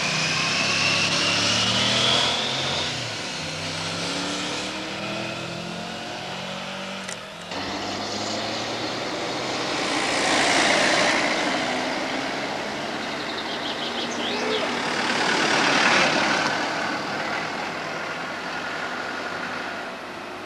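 Car engines on the road. Early on a vehicle runs with its engine pitch rising and falling. After a break, two cars pass close by, each growing louder and then fading, about halfway through and again about three-quarters of the way through.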